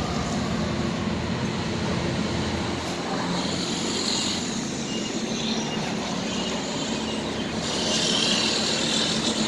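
Steady machinery hum with outdoor background noise, and a hiss that swells twice, about three seconds in and again near the end.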